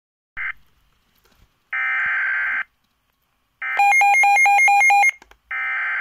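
Midland S.A.M.E. weather alert radio receiving an alert: separate buzzy, screechy digital data bursts about a second long, the SAME header that triggers the warning. In the middle the radio's alarm beeps fast and loud, alternating between a low and a high pitch about five times a second.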